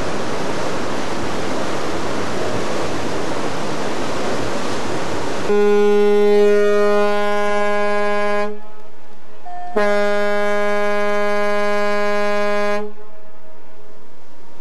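Ship's horn sounding two long blasts of about three seconds each, a little over a second apart. A steady rush of wind and sea comes before them.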